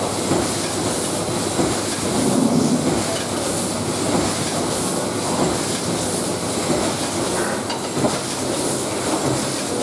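OPEM Compacta Colibri packaging machine running: a steady mechanical clatter, with a high hiss that swells and fades about once a second.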